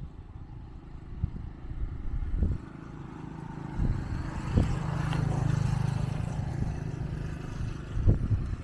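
A small engine droning, swelling to its loudest about halfway through and then easing off, over a low rumble with a few scattered thumps.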